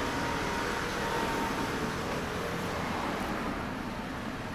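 Yamaha Fazer 400 inline-four idling steadily through a Leo Vince L SBK aftermarket muffler, growing slightly quieter near the end.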